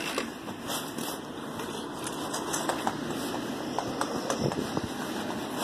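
Walking through grass with a handheld phone: irregular rustling and scattered soft clicks from footsteps and from the phone being handled as it is carried.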